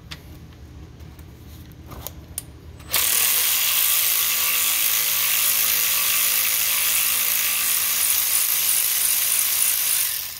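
Power ratchet running steadily for about seven seconds, loosening the fitting on the power steering high-pressure line, after a few faint clicks; it starts about three seconds in and stops abruptly near the end.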